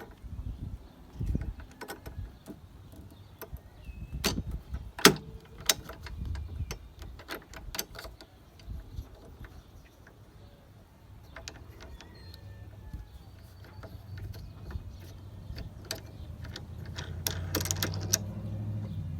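Scattered clicks and knocks of mower handle parts and bolts being handled and fitted, with one sharp knock about five seconds in and a quick run of clicks near the end. A low rumble grows louder toward the end.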